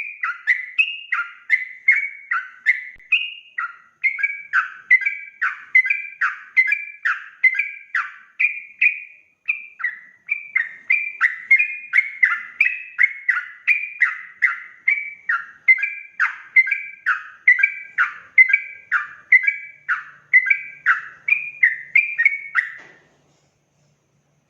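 Yellow-vented bulbul (trucukan) singing a rapid, unbroken 'ropel' song: a string of short falling notes, about two or three a second, that stops near the end.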